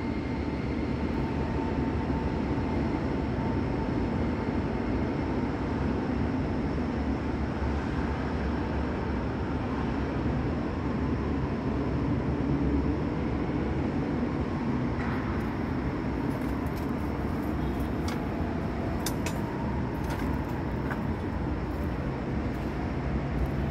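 Steady low rumble of construction machinery across a large open stadium site, with a faint held tone over it. A few light clicks come in the second half.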